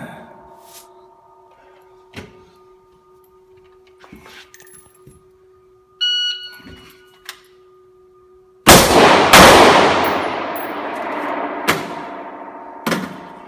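Electronic shot timer beeps once. About two and a half seconds later, an AR-15 in .223 fires two loud shots about half a second apart, ringing off the concrete walls of an indoor range. A couple of smaller knocks follow.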